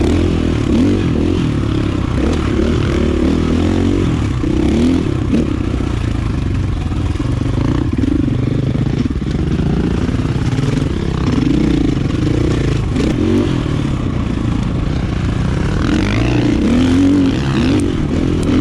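KTM 450 EXC single-cylinder four-stroke dirt bike engine, fitted with an aftermarket power kit, running under load while being ridden, its pitch rising and falling repeatedly as the throttle is worked.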